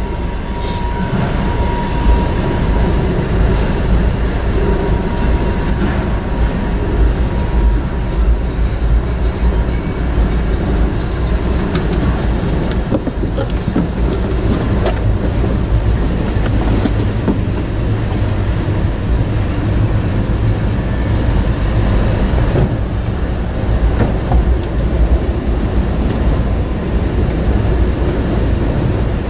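Freight train cars, enclosed autoracks among them, rolling steadily past at a grade crossing: a loud, continuous rumble of steel wheels on the rails with some clacking.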